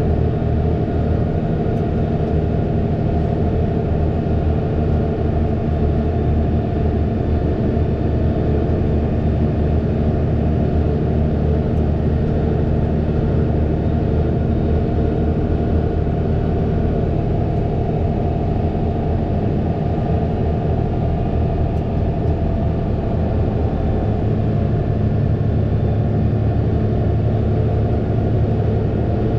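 Fendt 936 Vario tractor's six-cylinder diesel engine running steadily under load, with a deeper low note coming in about five seconds before the end.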